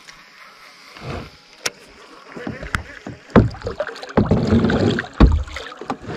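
Hollow knocks and thumps on a plastic kayak hull as the paddle and rod are handled, several in quick succession in the second half, with water splashing at the kayak's side.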